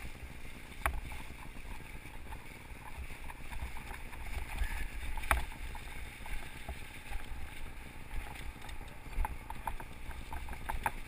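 Mountain bike ridden over a trail of dry fallen leaves: a steady rustle and crunch of tyres through the leaves with rumble from the ride, broken by sharp clicks and knocks as the bike rattles over bumps, the loudest about a second in and again about five seconds in.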